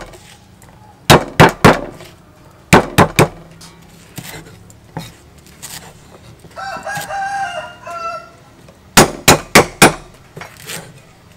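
A steel cleaver chops lemongrass stalks on a round wooden chopping block in quick runs of four or five sharp chops, three times. About halfway through, a rooster crows once.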